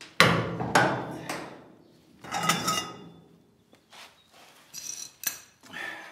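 Metal clanks and knocks from a steel cheater bar and ratchet working a Volkswagen hinge-pin puller under heavy torque, each strike ringing briefly. There are three sharp clanks in the first second and a half and another burst about two and a half seconds in, then lighter clicks and knocks. The hinge pin is seized and won't move.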